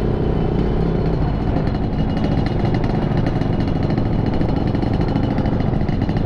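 Motorcycle engine running under way, with wind rush on the microphone; a fast, even pulsing comes in about a second and a half in.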